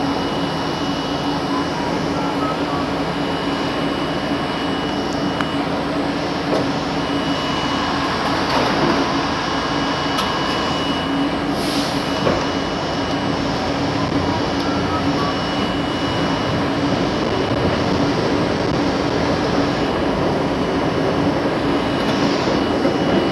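R32 subway car's steady running noise heard from the car: a constant hum under a rushing noise, with a faint high steady whine through most of it. A brief hiss near the middle.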